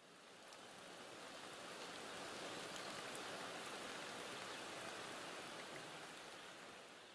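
Steady hiss of rain with a few scattered drop ticks, faint, fading in at the start and out near the end.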